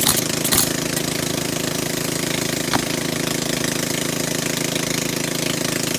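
Pneumatic roofing nailer firing into asphalt shingles: two sharp shots in quick succession at the start and another near the three-second mark. A steady engine drone runs underneath.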